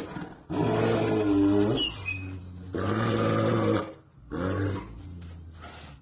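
A large dog howling: two long, drawn-out howls, then a shorter third one.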